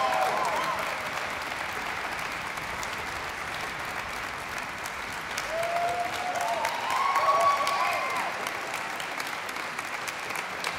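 Concert audience applauding steadily, with a few shouted cheers rising above the clapping right at the start and again from about five and a half to eight seconds in.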